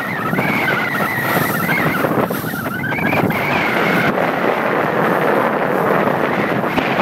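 Wind buffeting the microphone over the rush of choppy water along the hull of a Rival 41 sailing yacht under way. A wavering, whistle-like high tone sits over the noise for the first four seconds, then stops.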